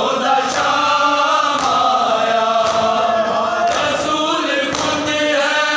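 A group of men chanting a noha in unison, with matam chest-beating strikes landing together about once a second.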